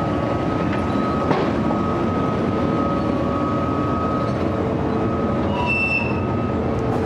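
Skoda ЧС11 1500 V DC narrow-gauge electric locomotive rolling slowly past at close range: a steady rumble with a steady high whine over it, and a single sharp click about a second in.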